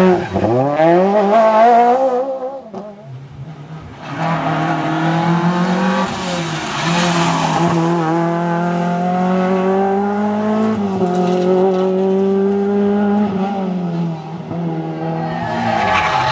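Rally car engines at high revs on a tarmac stage: one passes close with its note falling away, then after a short lull another holds a steady high-revving note for several seconds, its pitch stepping slightly a couple of times.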